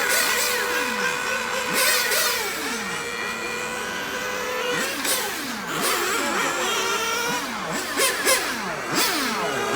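Small nitro glow engines of 1/10-scale RC cars running on a track, their high-pitched buzz rising and falling again and again as they accelerate, lift off and pass, with more than one engine heard at once.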